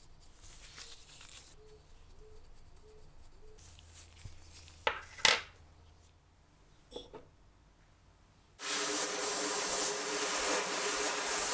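Sandblasting cabinet's blast gun blasting a rusty metal part: a loud, steady hiss of air and abrasive that starts abruptly about three-quarters of the way in. Before it there is only faint room sound, with two sharp knocks near the middle.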